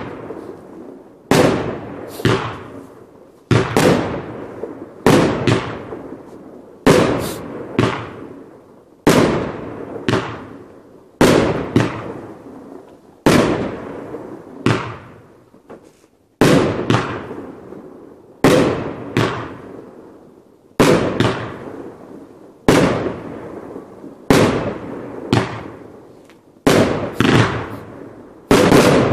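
Emperor Fireworks Nuclear Fusion Extreme 25-shot firework cake firing shot after shot: sharp bangs, mostly in close pairs, about every two seconds, each trailing off before the next.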